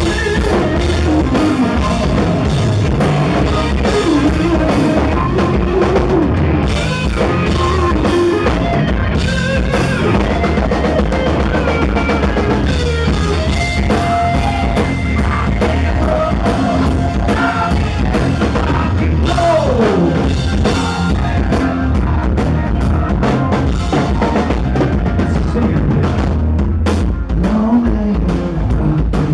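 Live hard rock band playing loudly: an electric guitar solo with held notes and pitch bends over a drum kit.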